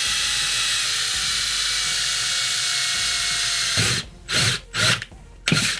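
Cordless drill running steadily for nearly four seconds, its pitch sagging slightly as the bit bores into the metal passive radiator plate on a JBL Charge 4 speaker, then three short squeezes of the trigger. The bit is not a metal-cutting bit.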